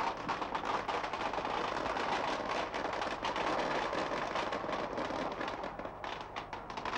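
Firecrackers going off in a dense, continuous crackle of rapid pops, thinning slightly near the end.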